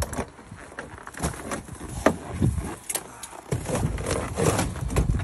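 A truck's cab door being unlatched and swung open, with scattered clicks, knocks and scrapes, and footsteps on snow.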